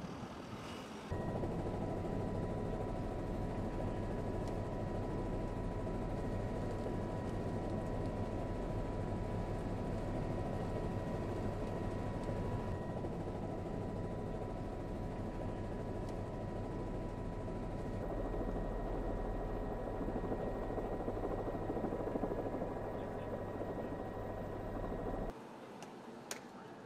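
Steady helicopter engine and rotor noise, heard from on board, with a thin steady whine over a deep hum. It cuts in abruptly about a second in and cuts out abruptly near the end.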